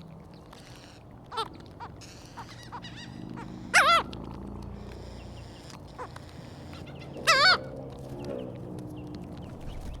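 Seagulls calling: short wavering cries, loudest once about four seconds in and again about seven seconds in, with fainter calls between, over a steady low hum.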